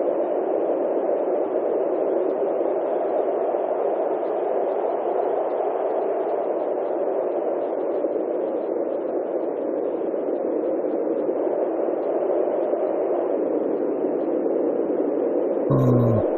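A steady, dull noise with no rhythm and no change. About a second before the end comes a short, low grunt from a wild boar.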